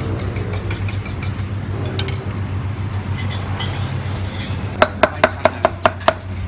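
Cleaver slicing cucumber on a thick wooden chopping block: a quick run of about seven chops, some five a second, near the end. Before it, a single light clink about two seconds in, over a steady low hum.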